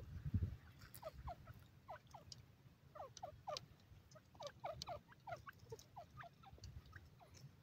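Grey francolin giving soft, short call notes, each falling in pitch, two or three a second, faint over a low rumble.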